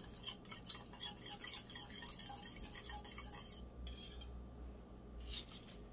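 Metal spoon stirring melted gel wax in a stainless steel pouring pot: quick clinks and scrapes against the pot for about three and a half seconds, then a couple of lone clinks near the end.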